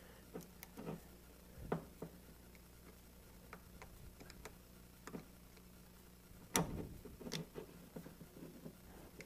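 Faint scattered clicks and taps of a metal pick and small parts working against a metal airsoft AK trigger box, pushing the valve locker down into its seat. The loudest click comes about six and a half seconds in, followed by a few lighter taps.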